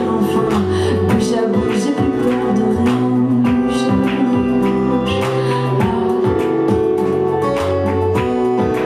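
A woman singing to her own strummed acoustic guitar, a red Yamaha cutaway, in a live solo song with a steady strumming rhythm.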